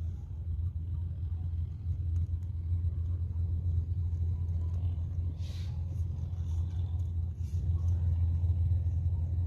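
Suzuki motorcycle engine running steadily, a low exhaust rumble with no horn sounding; a brief hiss about five and a half seconds in.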